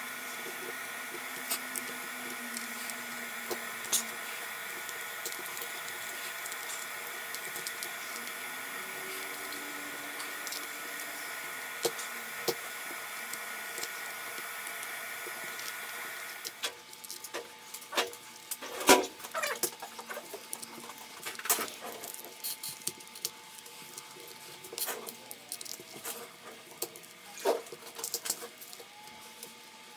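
Heat gun running with a steady whirring hum and a thin whine, switched off about sixteen seconds in. After that come irregular small clicks and scrapes of tools working on the phone's glass back.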